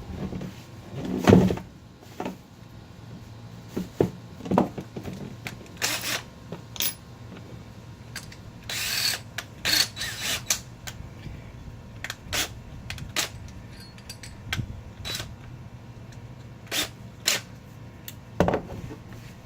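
Parts and hand tools being handled on a boat: irregular knocks, clicks and taps, with a brief scraping noise about nine seconds in.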